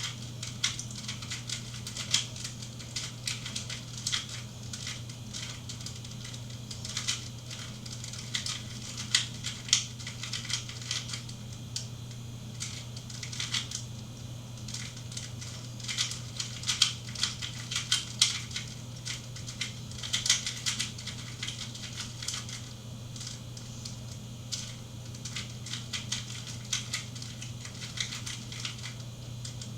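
A 2x2 Rubik's cube being turned by hand: quick, irregular plastic clicks and clacks as its layers snap round, over a steady low hum.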